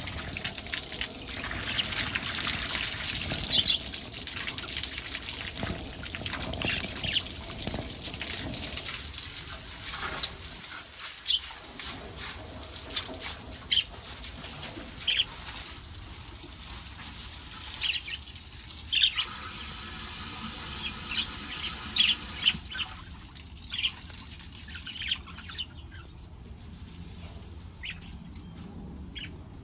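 Running water hissing steadily, fading away about two-thirds of the way through, while small pet parrots (budgies and lovebirds) give short, sharp chirps scattered throughout.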